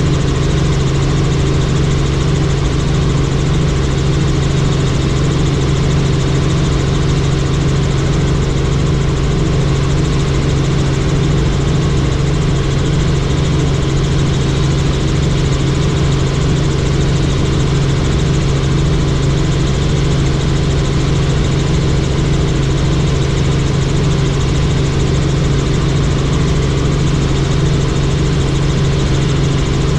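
Helicopter engine and rotor running with a loud, unchanging drone.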